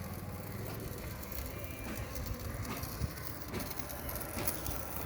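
Electric arc welding: a steady crackling hiss of the arc with irregular sharp pops.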